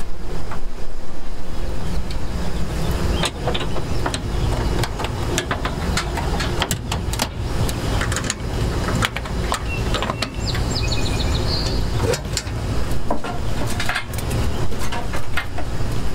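Knocks and clatter of a metal charcoal smoker's doors and grates, and of wood chunks being fed into its firebox, over a steady low rumble. A brief high chirping comes about two-thirds of the way through.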